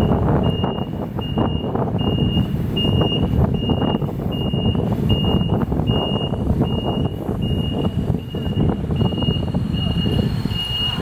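Road noise from riding in traffic close behind a bus, dense and rumbling, with a short high electronic beep repeating evenly about every two-thirds of a second.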